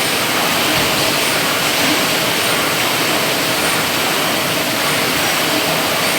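A steady, loud rushing noise with a faint steady hum underneath, unchanging throughout, typical of ventilation or machinery in a factory hall.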